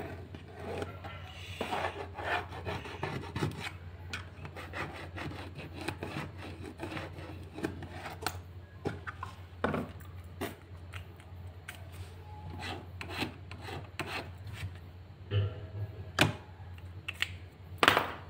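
Irregular scratching and scraping strokes on a thin PVC sheet as a circle is traced and scored along its line to cut it out, with a few sharper clicks among them.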